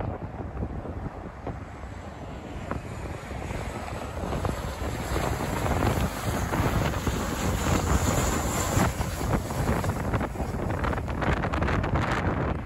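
Jet engines of a WestJet Boeing 737 on landing approach: a broad rushing roar that swells to its loudest as the airliner passes close overhead, about six to nine seconds in. Wind buffets the microphone, most of all near the end.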